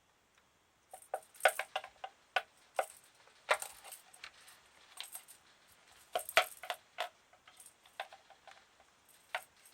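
A Norwegian Forest Cat kitten at play, knocking a toy about. It makes irregular light clicks and clatters that start about a second in and come in quick bunches.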